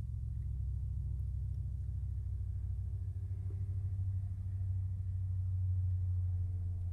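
A steady low hum or rumble with no distinct events.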